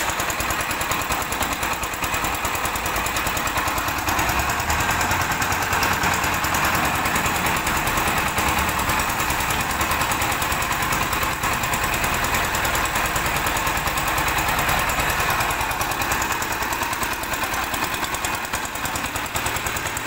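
Diesel engine of a new concrete mixer running steadily with a fast, even clatter, turning the empty drum.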